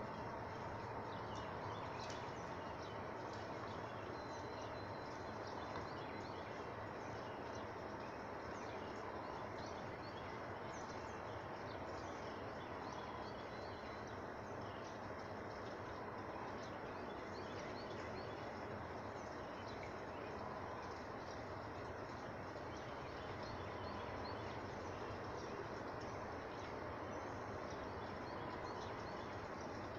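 Outdoor pond ambience: small birds chirp throughout over a steady low background hum, and faint Canada goose calls come now and then.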